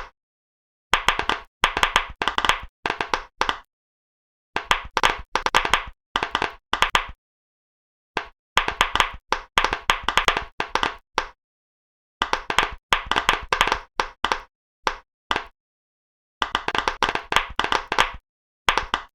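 Silicone pop-it fidget toy bubbles being pressed, a quick run of sharp pops in each burst. About five bursts of a second or two, separated by stretches of complete silence.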